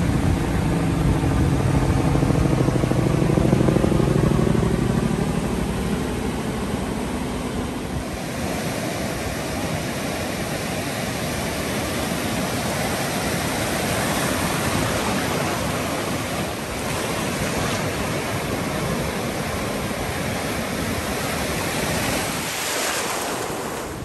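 Ocean surf washing onto a beach, a steady wash of breaking waves with wind on the microphone, swelling louder near the end. For the first several seconds a passing engine drones underneath, its pitch slowly bending as it goes by.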